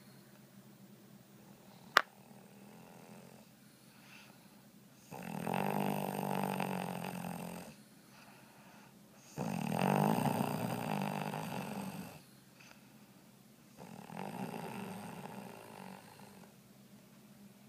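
Snoring: three long snores about four seconds apart, with a single sharp click about two seconds in.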